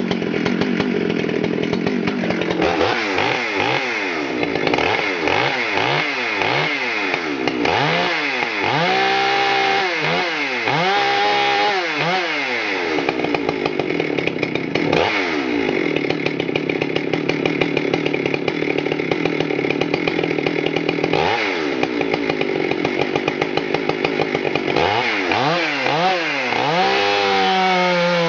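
Husqvarna 394 XP two-stroke chainsaw revving. The throttle is blipped again and again, the engine note swinging up and down, and is held high and steady for several seconds in the middle. Near the end, after more blips, the pitch drops and settles as the chain bites into the log under load.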